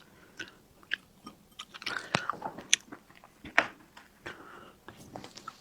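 Close-miked chewing and biting of food, with irregular wet clicks and smacks; the loudest come about two seconds and three and a half seconds in.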